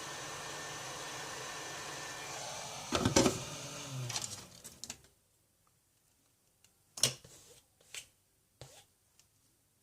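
Handheld hot-air blower running steadily while it heats the phone to soften the adhesive of double-sided tape. It is switched off with a clatter about three seconds in and its fan winds down. A few sharp clicks of tools on the phone follow.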